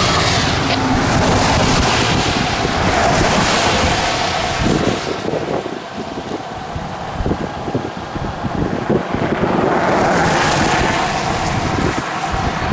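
Strong gusty wind buffeting the microphone, easing for a few seconds in the middle and picking up again near the end.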